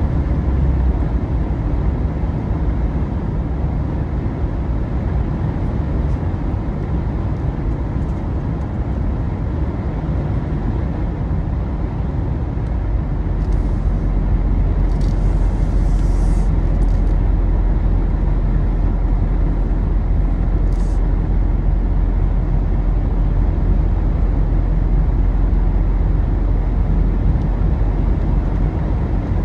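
Jeep Wrangler driving at road speed, heard from inside the cabin: a steady low rumble of engine and tyre noise. A short hiss rises over it about halfway through.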